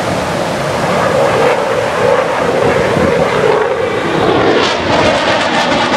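Jet aircraft flying past at an air show: continuous engine noise that takes on a wavering, swishing tone from about halfway through.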